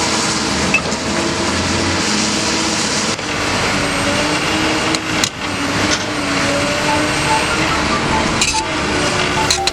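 Komatsu PC200 excavator's diesel engine running steadily, with tones that rise and fall in pitch and a few sharp metallic clinks.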